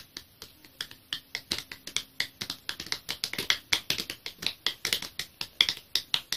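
A rapid, irregular run of sharp clicks or taps, about four to six a second, getting louder after the first two seconds.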